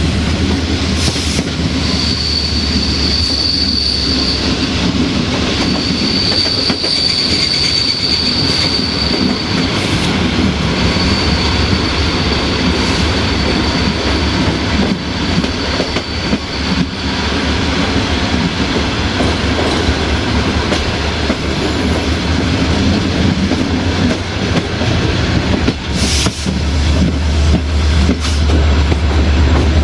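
A carriage's bogies rolling along the track, heard from inside the carriage at an open window, with the clatter of wheels over rail joints and a steady low drone from the diesel-electric locomotive ahead. A high, steady wheel squeal sounds from about two to ten seconds in and fades away. Near the end there is a sharp knock and the low drone grows louder.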